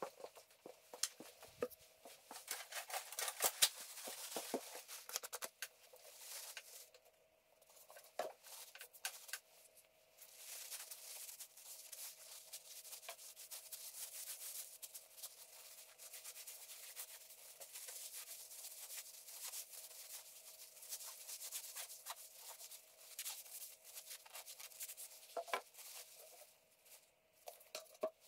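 Paper towel rubbing over an old draw knife, wiping it down: irregular, scratchy rubbing in stretches of a few seconds, with a faint steady hum beneath.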